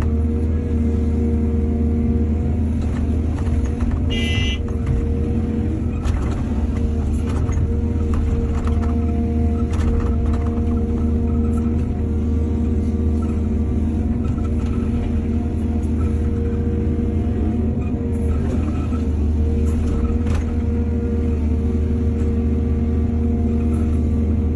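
Heavy diesel excavator engine running steadily under working load, a deep even hum, with scattered knocks and clatter and a brief high-pitched squeal about four seconds in.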